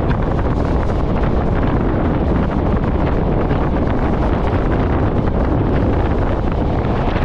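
Wind buffeting the microphone in a loud, crackling rush over the steady rumble of a moving train.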